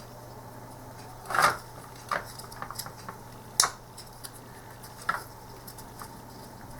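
Plastic parts of an Atari-style joystick being handled and fitted back together: a few separate clicks and knocks, the loudest about a second and a half in, over a steady low hum.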